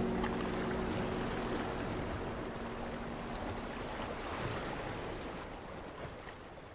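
Waves and rushing water on open, choppy water, a steady wash that slowly fades out near the end. The last held note of the song dies away underneath in the first few seconds.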